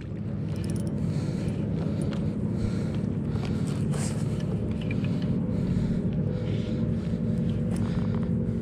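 A boat motor running steadily with a low hum, with a few faint clicks over it.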